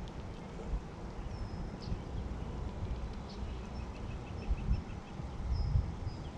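Steady rain falling, with a low rumble that swells about two thirds of the way through. A few faint high bird chirps and a short rapid trill come through the rain.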